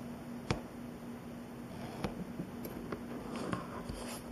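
Workbench handling noises from a steel ruler being positioned on a model sheet over a cutting mat: a sharp click about half a second in, a few lighter ticks, and a short scratchy scrape near the end. A steady low hum runs underneath.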